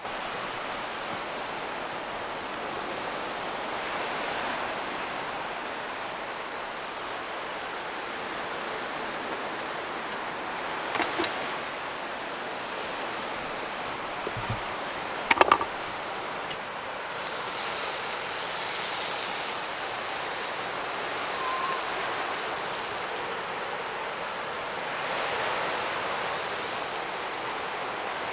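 Steady rushing background noise that swells and eases every few seconds, with a few sharp knocks of a knife cutting on a wooden chopping board about halfway through. A brighter hiss joins a little after that.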